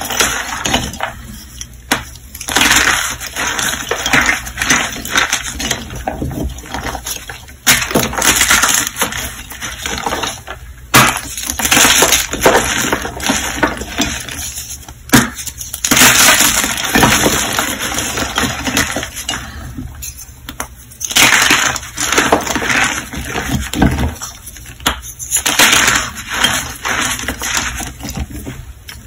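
Reformed gym chalk blocks crushed and crumbled in bare hands: irregular dry crunching and gritty crumbling, with a few sharp cracks as pieces snap apart.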